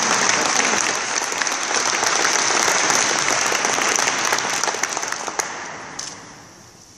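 Audience applauding, a dense patter of many hands clapping that fades away over the last two seconds.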